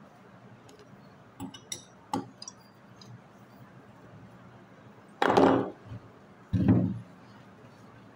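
Light metallic clicks and taps of hand work on a car AC compressor, then two heavy knocks about a second and a half apart as the compressor is tipped over and set on its side on the wooden workbench.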